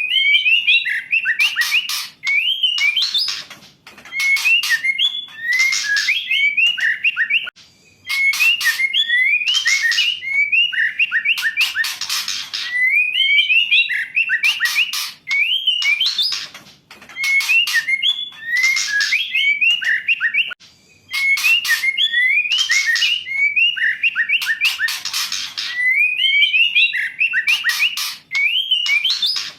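Female white-rumped shama calling: short rising and falling whistled notes mixed with harsh rasping chatters, in phrases repeated every second or two with brief pauses.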